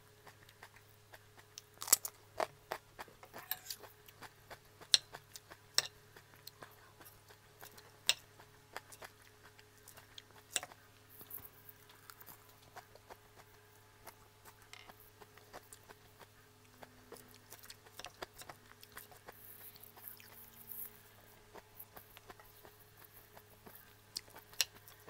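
Close-miked chewing and crunching of crisp lettuce salad and raw mini sweet peppers, with sharp crunches and clicks at irregular intervals over a faint steady hum.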